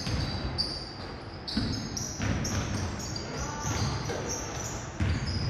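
A basketball bouncing on a hardwood gym floor, a few separate thumps, with sneakers squeaking in short high chirps as players move on the court.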